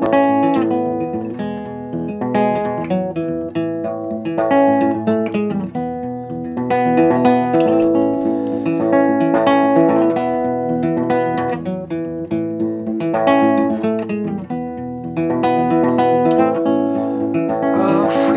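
Acoustic guitar playing a picked and strummed instrumental intro, its notes ringing into one another in a steady rhythm.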